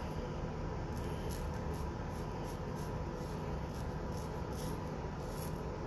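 R41 safety razor with a Treet blade scraping through stubble in short repeated strokes, a few a second, over a steady low room hum. This is a late pass, and the lather is drying and going pasty.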